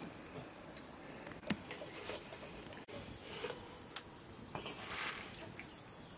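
Scattered faint clicks, then a soft rustle of chopped leafy greens being handled and pressed into a pot in the second half. A thin, high insect trill comes and goes in the background.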